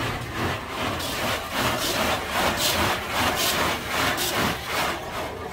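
Automatic car wash machinery working over the car, heard from inside the closed cabin. It makes a rushing, scrubbing noise of water and equipment that swells and fades about twice a second.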